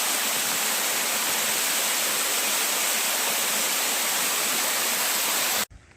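Steady, loud rush of falling water from a waterfall, cutting off suddenly near the end.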